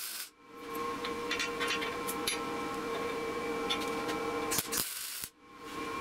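Lincoln 210MP wire-feed welder laying quick tack welds: two short bursts of arc crackle, one right at the start and one about four and a half seconds in, each cut off abruptly. Between them there is a steady hum and a few light clicks.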